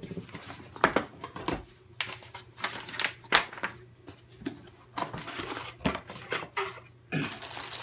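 A small cardboard box being handled, set down and opened by hand: irregular sharp knocks, taps and scrapes of cardboard as the box and its flaps are moved.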